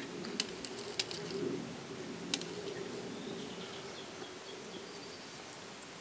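A few light clicks of glass beads and a beading needle being handled, over a steady low background hum.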